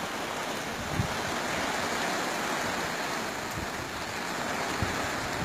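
Steady rain falling, an even hiss, with a couple of short low thumps about a second in and near the end.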